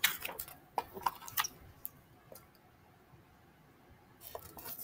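A few light clicks and rustles of a picture book being handled as its page is turned, with a quiet stretch in the middle and a few fainter clicks near the end.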